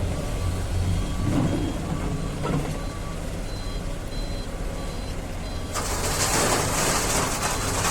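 Diesel excavator engine running steadily while its warning alarm gives short repeated high beeps. About six seconds in, a loud rushing noise starts suddenly and keeps going.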